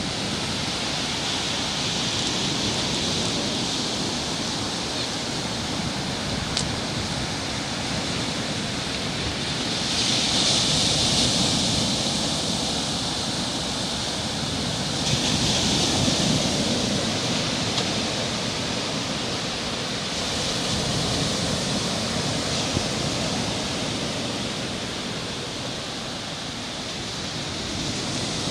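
Sea surf breaking on a rock breakwater and washing up the shore: a steady rushing noise that swells louder about every five seconds as each wave breaks.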